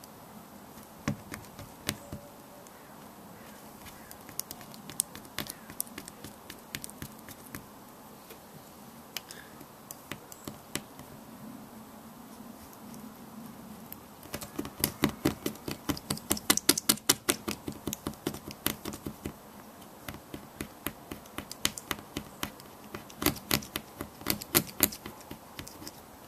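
Razor blade scraping cured repair resin and clear curing film off car windscreen glass in short scratchy strokes. The strokes come scattered at first, then in a fast run about halfway through and another near the end.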